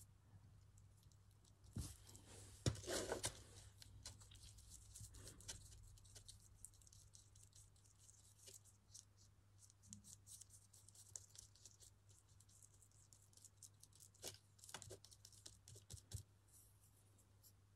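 Faint scratching and tapping as paint is mixed on a paper palette, with a couple of light knocks about two to three seconds in, over a low steady hum.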